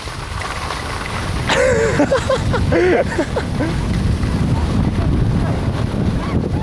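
Wind buffeting the camera's microphone as it moves down a ski slope, a loud steady low rumble. A person's voice calls out briefly between about one and a half and three seconds in.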